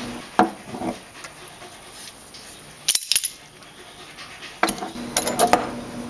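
Scattered clicks and clatter of small hard parts being handled: a clamp coming off a two-part hot glue ball mold and the mold halves being worked apart. A cluster of clicks comes about half a second in, a sharp one around three seconds, and a run of clatter near the end.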